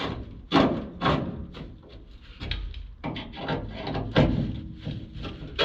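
Screws being tightened down with a hand tool into the window regulator mount inside a steel truck door: a run of irregular metallic clicks and knocks, loudest about half a second in, about a second in and just past four seconds.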